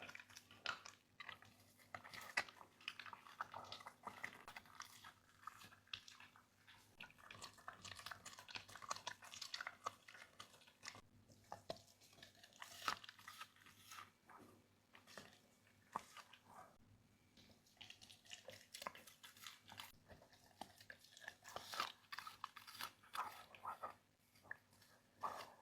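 A dog chewing and crunching on food or a chew, a faint, irregular stream of small crunches and clicks.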